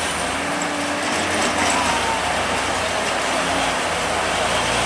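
Heavy diesel cargo trucks' engines running steadily as the trucks move slowly around a hairpin bend, with even engine and road noise.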